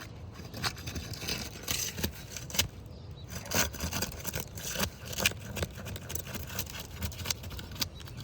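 Asphalt shingle being worked loose from the course beneath: irregular scraping and crackling clicks as it is pried and flexed, and its surface granules rub off.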